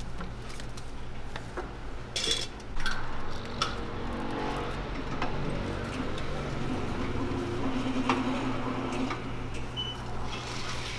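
Metal clanks and clicks from a hinged Hong Kong egg-waffle iron being turned, opened and worked with metal skewers to free the waffle, over a steady low hum.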